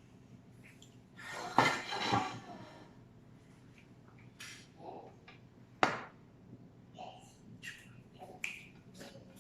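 Quiet room with scattered faint clicks and taps, one sharp click about six seconds in, and a brief muffled noise near two seconds in.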